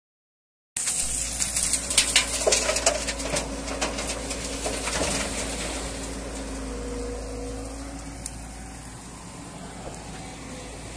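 JCB JS140 tracked excavator's diesel engine running steadily after a brief silence. Stones clatter and knock sharply over the first few seconds as the machine works riverbed gravel for loading into a dump truck, then it settles to the engine's hum.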